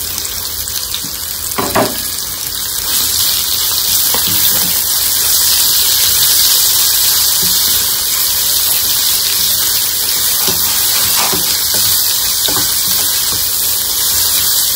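Sliced onions frying in hot oil in an aluminium kadai, a steady loud sizzle that swells over the first couple of seconds and then holds, with a few light knocks of a wooden spoon stirring against the pan.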